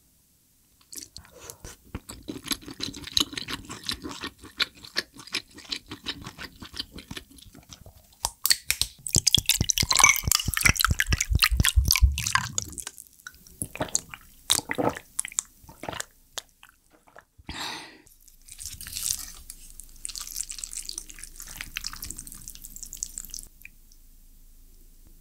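Close-miked chewing, then iced tea poured from a plastic bottle into a glass mug full of ice cubes: a dense run of splashing and clinking that fills up and stops suddenly about twelve seconds in, the loudest part. Scattered mouth and eating sounds follow.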